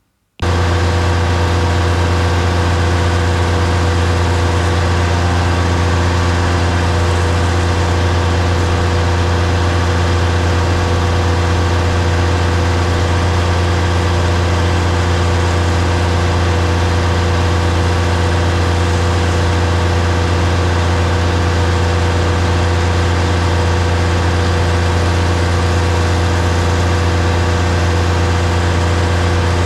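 DAF combi gully tanker running at a constant speed, a steady low drone with a strong hum, as it powers the jetting equipment for washing down.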